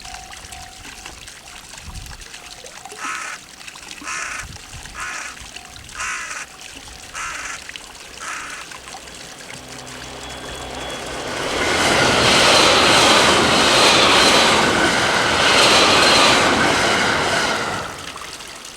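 A train runs past at speed: a loud rushing of wheels on rails with a steady whine over it. The sound swells over about two seconds, holds, and drops away near the end. Before the train arrives, a crow caws about eight times in a quick series.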